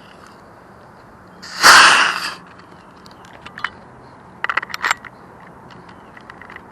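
A loud rustling scrape lasting under a second, about a second and a half in, like gear or brush rubbing close to the microphone. It is followed by scattered sharp clicks, with a quick cluster of them near the middle.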